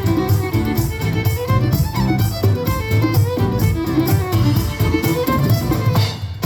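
A live Celtic folk band playing a fiddle-led tune over a steady percussion beat, amplified through the PA for a sound check.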